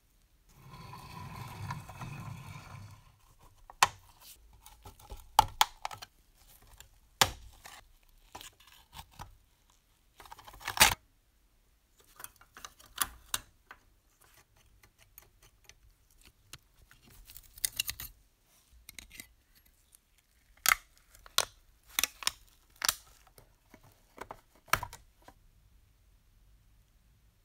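Small rusty metal parts of a clockwork toy locomotive being handled and set down: scattered sharp clicks and light metal taps, with a rough rubbing noise during the first few seconds.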